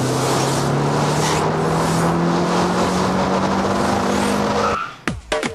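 Toyota Celica's engine accelerating hard, its pitch rising steadily for almost five seconds over a loud hiss of tyre noise. It cuts off shortly before the end, and electronic music starts.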